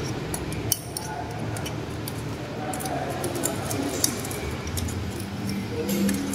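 Light metallic clinks and clicks, scattered and irregular, from tools and small metal parts being handled during the teardown of a high-pressure cleaner, over a steady background hum.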